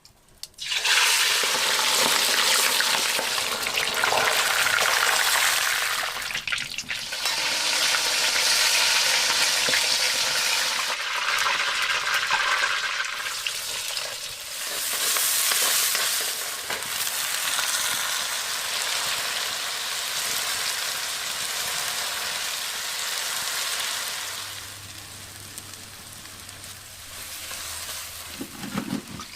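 Food frying in hot oil in a pan, a loud steady sizzle that starts suddenly and eases off near the end.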